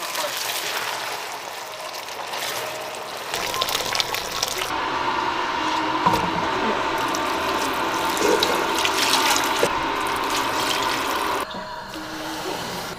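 Water running and pouring into a cooking pot, a steady filling sound that stops suddenly about a second and a half before the end.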